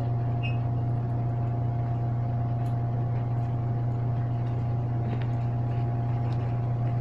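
Steady low mechanical hum with a faint higher steady tone over it, unchanging throughout. Over it, a few faint clicks of scissors snipping through denim.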